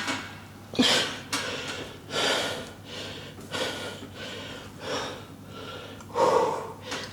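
A man breathing hard and loud in forceful, noisy breaths, roughly one a second, from exertion during a heavy set of leg presses.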